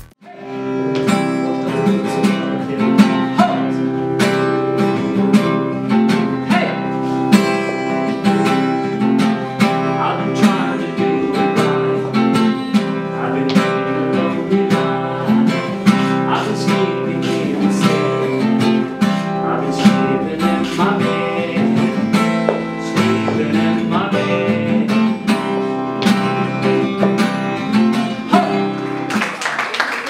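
Acoustic guitar strummed and picked in a steady rhythm, with a man singing along.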